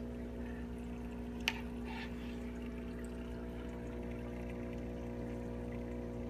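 Reef aquarium water circulating, a steady pump hum with a trickle of moving water, broken by one sharp click about a second and a half in.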